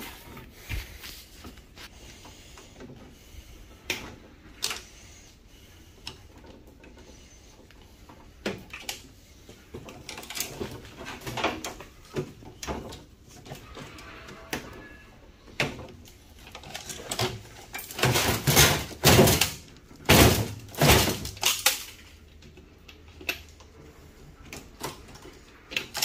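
Sheet-metal casing and plastic parts of a microwave clanking, rattling and knocking as they are pulled and pried apart by gloved hands. Scattered single knocks, with a louder run of rattling about three quarters of the way through.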